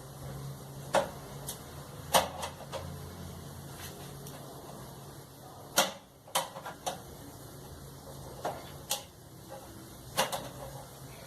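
Tools and dryer parts being handled during a repair: about a dozen sharp clicks and knocks at irregular intervals over a faint steady low hum.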